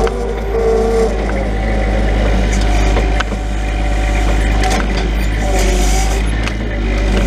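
Grapple truck's engine running steadily while the hydraulic knuckle-boom loader is worked slowly, still warming up, with a few light knocks and clicks from the boom and grapple.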